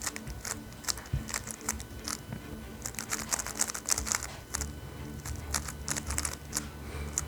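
A 3x3 speed cube being turned fast: rapid, irregular clicking and clacking of the plastic layers, in quick clusters, over background music.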